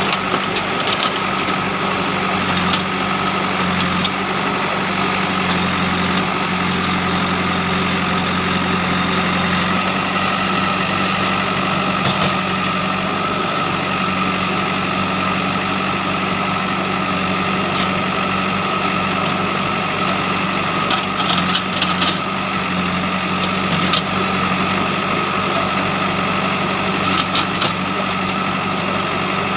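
JCB 3DX backhoe loader's diesel engine running steadily while the machine levels soil, with a few brief clanks about two-thirds of the way through and near the end.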